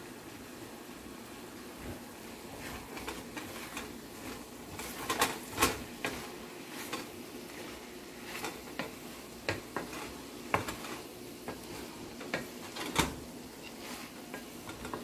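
Wooden spatula stirring and scraping vegetables in an aluminium karahi, with irregular knocks against the pan, the loudest about five seconds in and near the end, over a low sizzle of the food frying.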